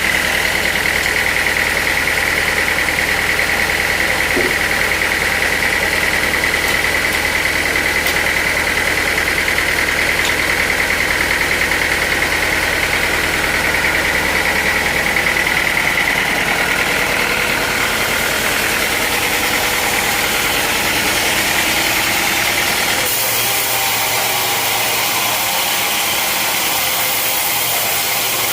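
Sawmill machinery running steadily: an engine with a high, even whine over it. The sound changes abruptly near the end.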